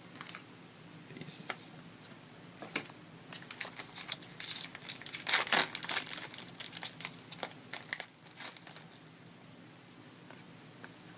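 Hockey trading cards and their foil pack wrapper being handled, crinkling and rustling in short irregular bursts that are busiest in the middle, with some tearing.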